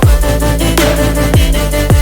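Background music: an electronic instrumental passage with a steady beat and deep falling kick-drum hits about every half second.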